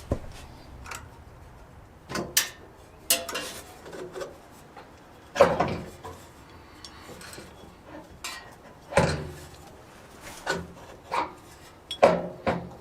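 Hand tools clinking and scraping on the metal parts of a bandsaw's upper belt drive: a series of irregular knocks and short rubbing strokes, the loudest about five and a half seconds in, again near nine seconds and near the end.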